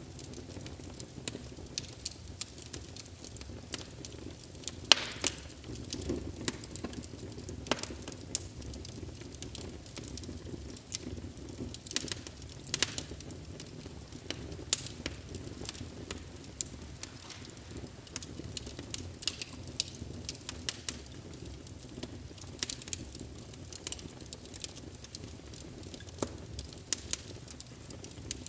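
Wood fire burning in a fireplace, crackling with frequent irregular sharp pops over a low steady rumble. The loudest pop comes about five seconds in.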